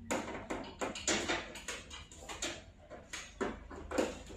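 A quick, irregular run of knocks and rattles, as a long stick is poked and banged about among wooden roof beams and a rack of metal utensils.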